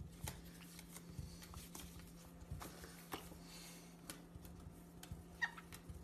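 Faint scattered taps and scuffles of a tennis ball and a white-bellied caique's feet on a wooden floor, over a low steady hum, with a short faint squeak about five and a half seconds in.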